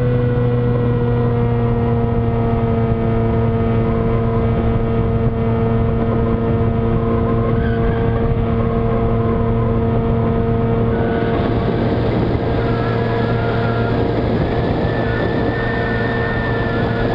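Electric motor and propeller of a Skywalker FPV model plane running at steady throttle, a steady hum at constant pitch, with wind rushing over the airframe. The wind rush grows louder about eleven seconds in.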